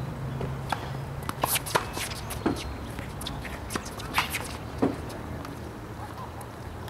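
Tennis ball struck back and forth by rackets during a doubles rally: a few sharp pocks a second or two apart, with quicker scuffs and taps of players' shoes on the hard court between them.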